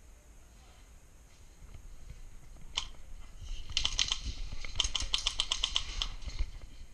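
Airsoft gun firing: a single shot about three seconds in, then two rapid full-auto bursts of sharp clicks, the second lasting just over a second.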